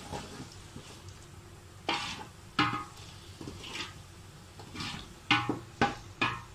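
A spoon knocking and scraping against a metal cooking pot while stirring, with about seven separate strokes that come faster near the end.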